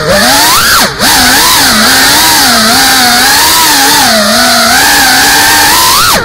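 FPV racing quadcopter's motors whining, the pitch wavering up and down with the throttle. About a second in the whine dips sharply and swoops back up, and it dips again at the very end.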